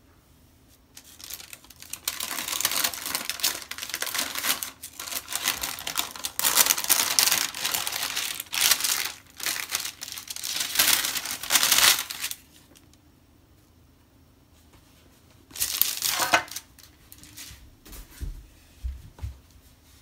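Crinkling and rustling of handled sheet material, in a long run of bursts lasting about ten seconds. A shorter burst follows a few seconds later, then a few soft low knocks near the end.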